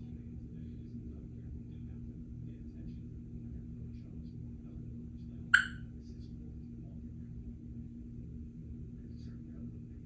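Steady low room hum, broken about halfway through by one short, sharp chirp from a Congo African grey parrot.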